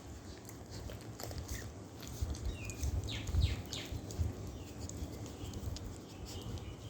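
Four-week-old puppies suckling at their mother's teats: small wet sucking and smacking clicks with low bumps. A few short, high squeaks that fall in pitch come from the pups about three seconds in.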